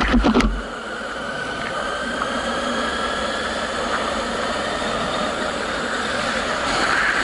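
Yamaha FZS600 Fazer's inline-four engine running steadily as the motorcycle rides along a city street. There is a short burst of thuds at the very start, and the engine gets a little louder near the end.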